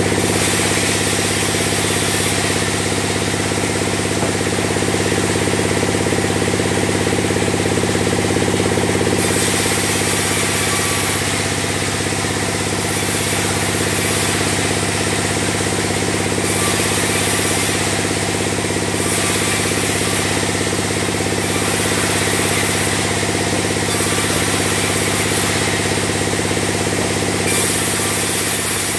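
Band sawmill running steadily while sawing a log into beams: a constant low machine hum, with a high hiss that cuts in and out every second or two.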